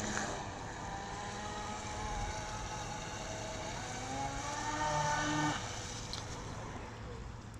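Electric RC speedboat running at full speed on a 6S LiPo pack: a steady motor whine that rises in pitch about four seconds in, then fades away near six seconds as the boat heads off.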